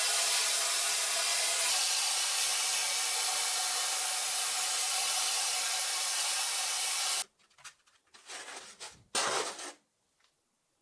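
A workshop tool runs with a steady hiss and a faint hum, then cuts off suddenly about seven seconds in. A few short rubbing strokes follow.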